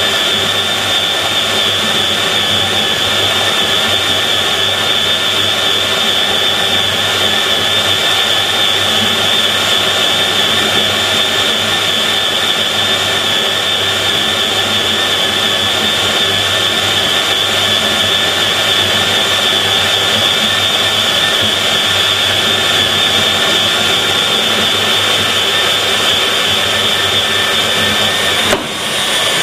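Fein KBM 50 Auto magnetic core drill running a 50 mm core bit through metal under its own automatic feed: a steady drilling noise with a strong high whine, with one brief drop in level near the end.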